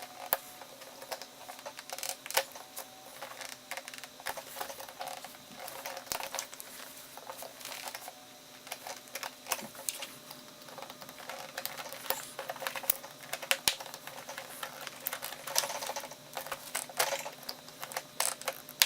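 Razor knife scoring and cutting through a golf cart's boot, heard as irregular clicks, scrapes and scratchy strokes.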